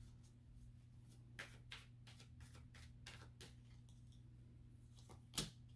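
Tarot cards being shuffled and handled: a series of faint, short card taps and flicks, with a louder tap about five seconds in, over a low steady hum.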